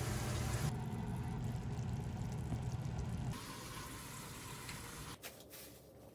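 Steady low hum and hiss of stovetop cooking, where lotus root is being braised in a glaze. The sound drops away about three seconds in, leaving faint room tone with a few light clicks.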